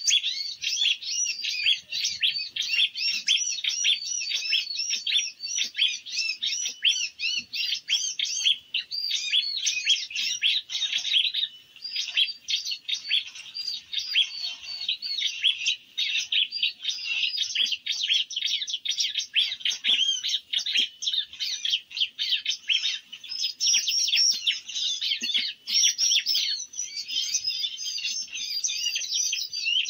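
Small birds chirping and twittering rapidly and without pause, many high-pitched calls overlapping.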